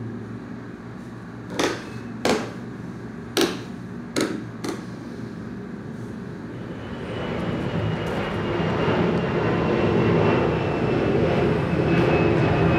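Five sharp hand strikes in the first five seconds, then a low rumbling drone with a faint high whistle that builds up from about seven seconds in and grows louder.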